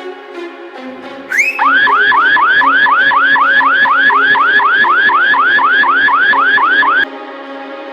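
Phone anti-theft alarm app's siren going off: a loud, fast repeating rising whoop, about four sweeps a second. It starts just over a second in and cuts off suddenly near the end, over background music.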